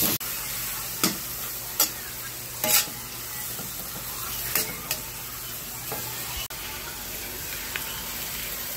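Shelled mussels sizzling steadily as they are stir-fried in a metal wok, with a metal spatula scraping and knocking against the pan every second or so.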